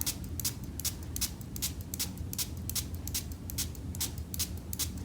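Small plastic trigger spray bottle being pumped over and over, a quick series of short hissing sprays of water, about three a second.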